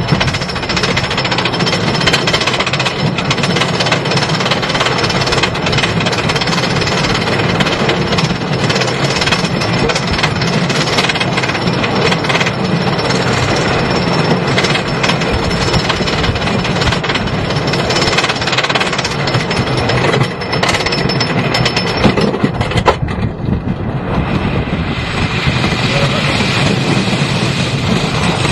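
Onboard sound of a wooden roller coaster train running on its track: a loud, dense, rapid clattering rattle, with a brief dip about 23 seconds in before it carries on.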